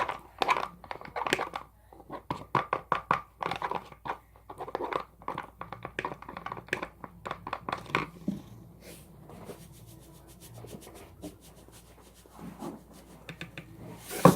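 A mixing tool stirring thick shampoo-and-salt slime mixture in a bowl: quick, irregular scraping and tapping strokes, busy at first and fainter and sparser after about eight seconds, with a few louder strokes near the end.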